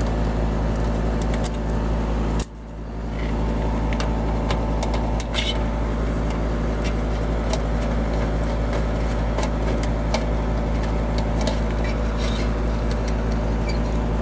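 Steady low hum of a running machine, dropping away briefly about two and a half seconds in, with light scattered clicks of a screwdriver backing out the screws of a heat pump defrost board.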